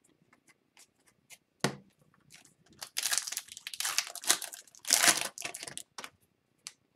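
A few light clicks of cards being handled, then the wrapper of an Upper Deck Series 2 hockey card pack being torn open and crinkled, in two bursts of tearing and rustling about three and five seconds in.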